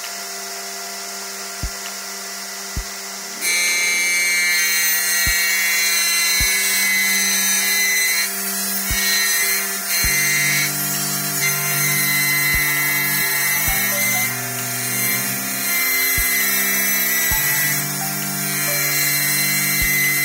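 Sliding-table panel saw running with a steady high whine, getting much louder from about three seconds in as the blade cuts through a melamine panel. Background music with a steady beat and changing bass notes plays over it.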